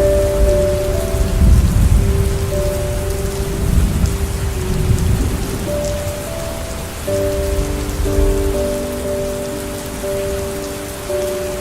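Steady rain falling, with a low rumble of thunder rolling through the first half. Soft music of slow, held notes plays underneath.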